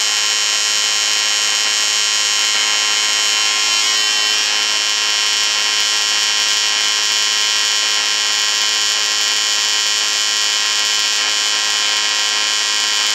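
AC TIG welding arc on aluminum buzzing steadily as a bead is run. It comes from an Everlast POWERTIG 255EXT set to the triangular waveform at 110 Hz AC frequency, 125 amps, no pulse.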